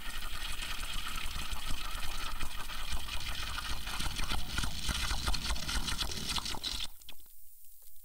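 Coffee being slurped from a cup in one long, crackly sip that cuts off suddenly about seven seconds in, followed by a few faint clicks.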